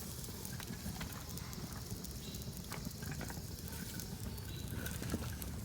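Campfire wood crackling, with scattered sharp pops over a steady low rumble.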